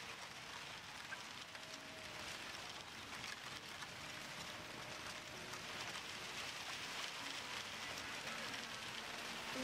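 A steady rain-like hiss with faint crackles, slowly growing louder, with a few faint held tones drifting through it.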